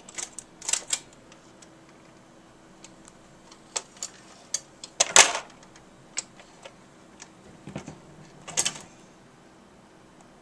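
Magnavox Micromatic record changer starting up and cycling: a series of mechanical clicks and clunks, the loudest about five seconds in, over a faint steady hum.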